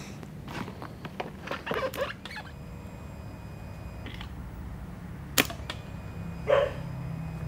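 One sharp click about five seconds in, over a faint steady low hum and a faint high whine that comes and goes; no engine is running.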